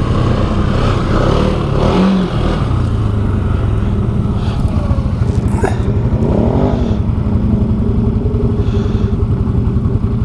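ATV engine running under way, its pitch rising and falling with the throttle. It is running normally after water was cleared out of its CVT clutch case.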